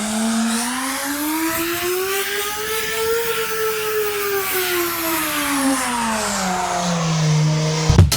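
A steady pitched drone that climbs slowly in pitch for about three seconds and then slides back down, like a slow rev. Drum-heavy music cuts in right at the end.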